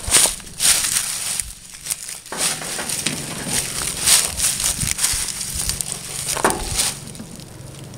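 Irregular rustling and crackling handling noises, with no engine running.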